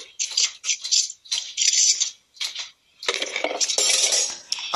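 A quick run of small hard objects clinking and rattling, followed about three seconds in by a denser stretch of clatter and rustling.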